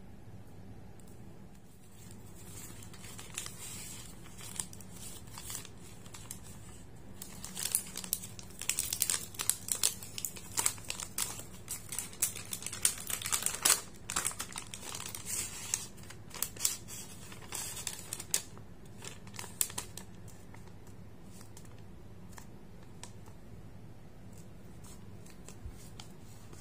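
Paper and plastic takeaway bags crinkling and rustling as they are handled and opened. The crackling starts about seven seconds in, is busiest in the middle with many sharp crinkles, and thins out after about twenty seconds.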